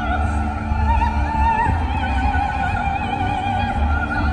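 Operatic singing with orchestral accompaniment: a long held vocal line with a wide vibrato.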